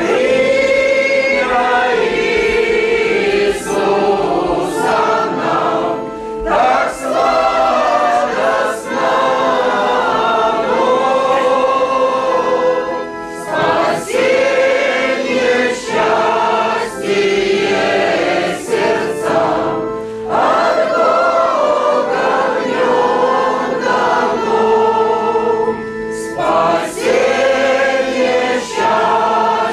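Congregation of mixed men's and women's voices singing a hymn in unison from songbooks, accompanied by an electronic keyboard, line by line with short breaks between phrases.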